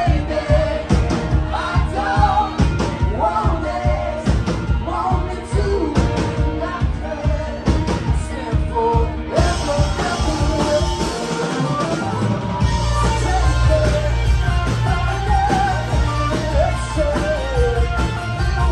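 Live rock band playing loud, with electric guitars, drums and singing. The beat drops out briefly about eleven seconds in, then the full band comes back in heavier.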